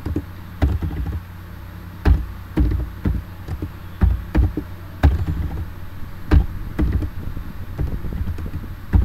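Computer keyboard being typed on: irregular, separate keystrokes with a dull thud, over a low steady hum.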